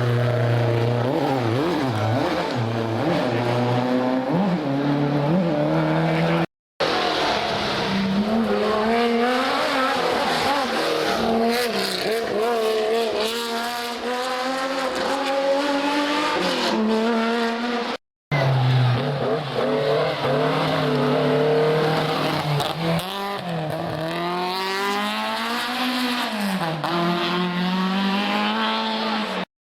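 Historic rally cars at full effort on a special stage, engines revving hard and dropping back through gear changes as they pass. The sound is in three stretches that cut off abruptly, about six and a half seconds in and about eighteen seconds in.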